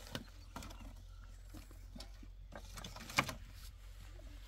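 Wooden planks being set down and shifted on a concrete-block frame: scattered light knocks of wood on block, with one sharper knock about three seconds in.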